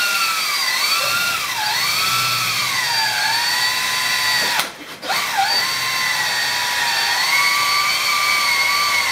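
Cordless drill with a spade bit boring through a jerry can cap held in a vise. The motor's whine dips in pitch each time the bit bites and recovers. It stops briefly about four and a half seconds in, then starts again and runs on steadily.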